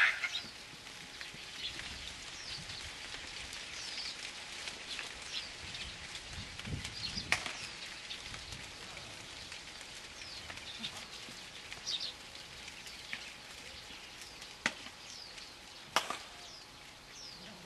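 A few sharp cracks of a softball bat hitting the ball, spaced several seconds apart. Small birds chirp throughout, with short, quick, falling calls.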